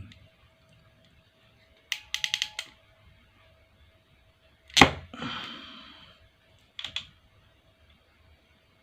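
Panduit crimping tool crimping a Cat 6 RJ45 plug onto a LAN cable: a quick run of about five clicks as the handles are squeezed, then one loud sharp snap about five seconds in as the crimp closes, and two light clicks near the end.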